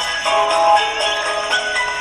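An alarm ringtone tune, an MP3 played by an Android app's MediaPlayer service in the emulator: a continuous melody of short, high notes with little bass.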